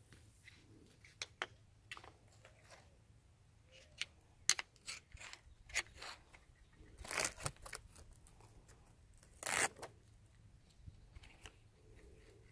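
Segmented metal poles of a folding camping chair frame clicking and knocking against each other as they are folded into a bundle, with two louder scraping rustles in the second half.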